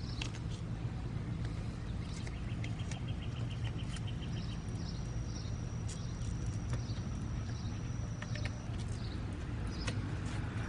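Birds singing in the background: a fast, even trill, then a high thin held note with short falling notes beneath it, over a steady low hum. A few light handling clicks are heard at the start and near the end.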